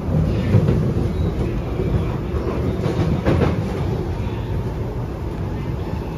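Interior running noise of a Kawasaki & Nippon Sharyo C751B metro train in motion: a steady low rumble of wheels on rail, with a brief louder rush shortly after the start and a short burst of rattling about three seconds in.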